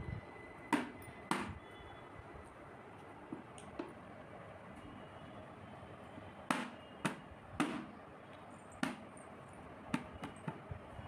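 Hands pressing and patting play dough on an upturned plastic plate, giving about a dozen light, irregular knocks and taps.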